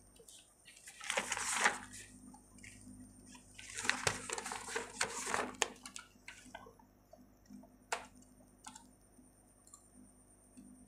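Faint sounds of someone working at a computer: two stretches of soft hissing noise, then a few single sharp clicks, like mouse clicks, near the end.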